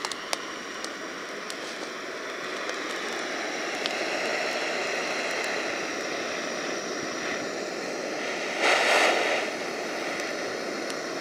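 Portable gas burner hissing steadily as it is held to damp kindling, growing slowly louder and swelling briefly about nine seconds in. A few sharp ticks near the start.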